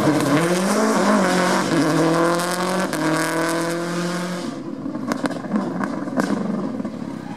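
Subaru Impreza rally car's turbocharged flat-four engine accelerating hard, its note rising through two gear changes. The engine note then falls away, followed by a few sharp cracks.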